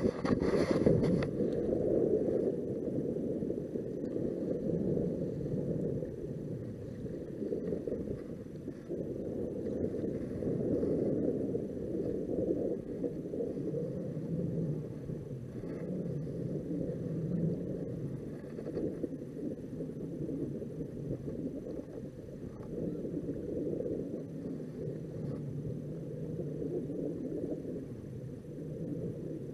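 Muffled, uneven rumble of wind and small waves around a drifting plastic fishing kayak on choppy water, with a short clatter about a second in.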